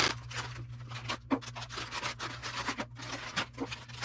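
Clear plastic parts bags rustling and crinkling as hands pick them up and handle them, a run of irregular short rustles over a low steady hum.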